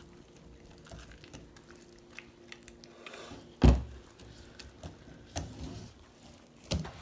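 Soft handling noises of sticky slime and a spaghetti squash half being worked on a table, with scattered small clicks. A dull thump about halfway through, and a smaller one near the end.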